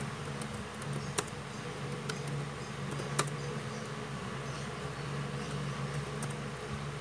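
Typing on an ASUS laptop's chiclet keyboard: sparse, soft key clicks, two of them sharper about one and three seconds in, over a steady low hum.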